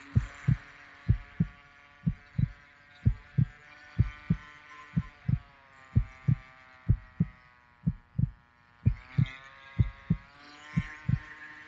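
A heartbeat sound effect: a steady double thump about once a second. Under it runs the thin whine of the model plane's electric motor, which shifts in pitch near the end.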